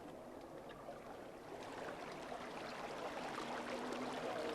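Steady rushing of water along a fishing boat's hull, growing gradually louder.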